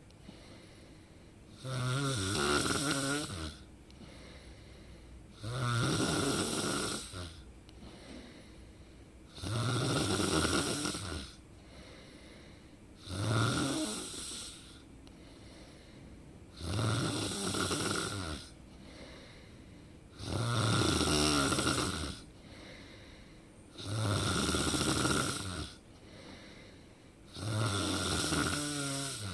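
A person snoring in a slow, even rhythm: one loud, pitched snore about every three and a half to four seconds, eight in all, with fainter breathing between.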